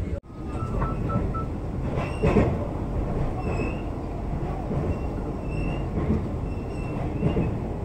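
Vande Bharat Express electric train running, heard from inside the coach: a steady rumble of wheels on rails with faint, brief high whines, as the train crosses a river bridge. A short dropout just after the start marks a cut, and the rumble swells briefly about two seconds in.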